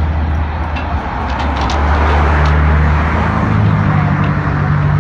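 Roadside traffic noise with a steady engine hum from motor vehicles, and a few light clicks about a second in.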